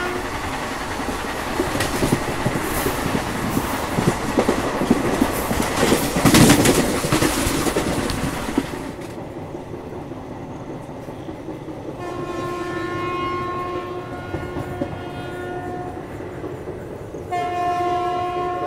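Passenger train running on the rails with a loud rushing clatter of wheels for about the first nine seconds, then quieter running. A train horn sounds one long steady blast a few seconds later, and a second blast starts near the end.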